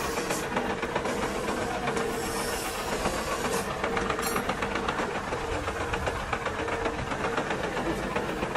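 Metal lathe running with its chuck spinning: a steady machine hum with a constant tone and fast fine ticking over a hiss.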